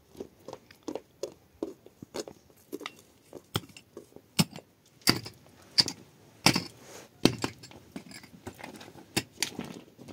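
Irregular sharp knocks and clatter, about two or three a second, with the loudest hits around the middle.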